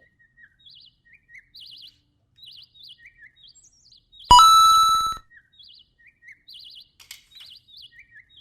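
Faint, repeated bird-like chirps and trills, with one loud buzzy tone that starts sharply about four seconds in and lasts about a second.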